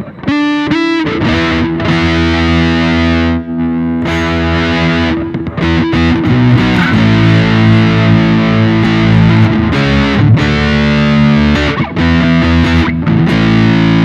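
Electric guitar played through the Zoom G1X On's BG Throttle distortion, its copy of the Mesa Boogie Throttle Box, giving a heavily distorted tone. Held chords ring out and change every second or two, with a few short breaks between them.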